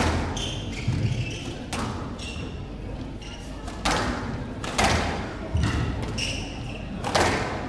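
Squash rally: the ball cracks off rackets and the court walls about six times, one to two seconds apart, with short high squeaks of players' shoes on the wooden court floor between the hits.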